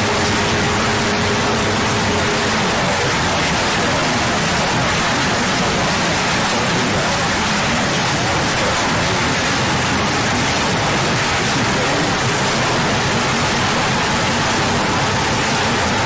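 Loud, steady static-like hiss spread evenly from low to high pitch, a noise sound effect, with faint steady tones underneath that fade out about three seconds in.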